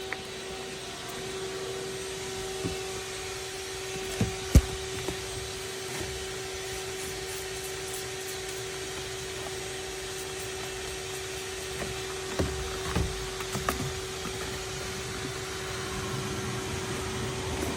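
Shop vacuum running steadily in blow mode, with a steady motor whine, forcing air into a car's exhaust through the tailpipe to find a leak by soap bubbles. A few sharp knocks and clicks come about four to five seconds in and again from about twelve to fourteen seconds in.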